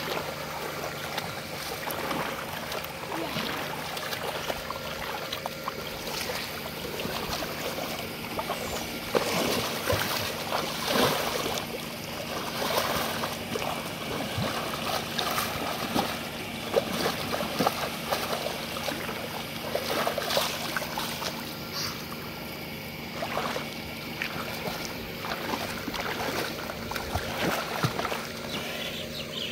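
Shallow muddy water splashing and sloshing irregularly as a boy crawls and wades through it, grabbing at a carp by hand.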